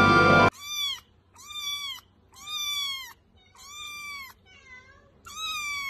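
A young kitten meowing repeatedly: about six high-pitched calls, each rising and falling, in quick succession. Background music cuts off about half a second in, just before the meows begin.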